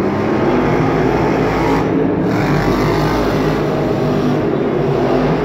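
Monster truck engines running loud and steady, their note holding without a break.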